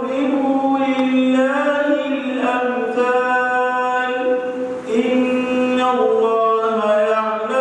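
A man reciting the Quran in Arabic in a melodic, chanted style. His voice holds long, drawn-out notes with ornamented glides between them, with a brief pause a little past the middle.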